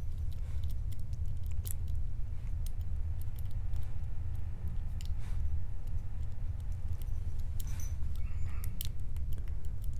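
Scattered light metallic clicks and scrapes of a hook pick working the pin stack of a brass lock cylinder held under tension, single-pin picking, with a pin clicking as it sets. A steady low hum runs underneath.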